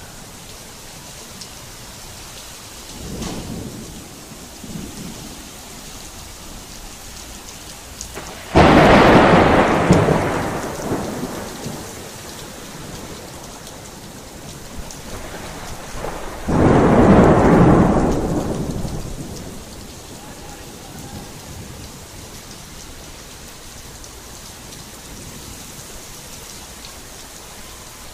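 Heavy rain falling steadily, with a faint rumble of thunder about three seconds in. Two loud thunderclaps break in suddenly, one about a third of the way in and another just past the middle, and each rolls away over two or three seconds.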